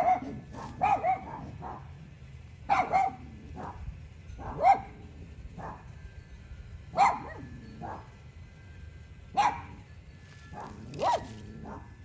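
A dog barking: short, sharp barks, single or in quick pairs, every couple of seconds.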